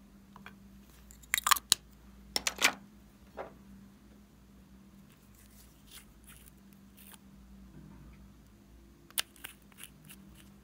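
Sharp clicks and taps of small plastic and glass cosmetics handled over a glass bowl: two quick clusters early, a single tap, then a few more clicks near the end as the cap of a glass nail polish bottle is worked loose.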